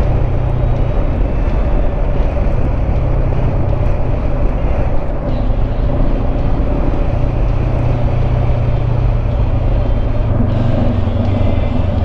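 Honda CB500X parallel-twin motorcycle riding at a steady pace: an even engine drone with a constant rush of wind and road noise over it.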